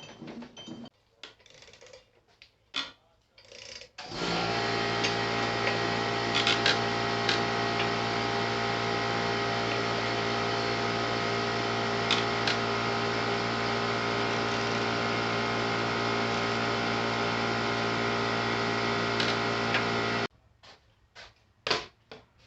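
A motor running steadily at one constant pitch for about sixteen seconds, starting suddenly about four seconds in and cutting off suddenly near the end, with a few light clicks and knocks before and after it.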